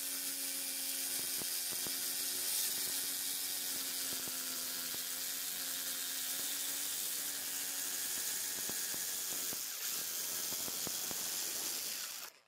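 Electric jigsaw running at a steady pitch as its blade saws through a wooden handle blank, a buzzing motor whine under a rasping cut. It cuts off suddenly near the end.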